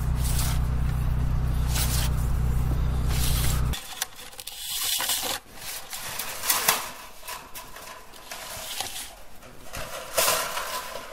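Compact excavator's diesel engine idling steadily, ending abruptly about four seconds in. After that come irregular scrapes, rubs and knocks as the black plastic well line is pulled through the hole in the concrete basement wall.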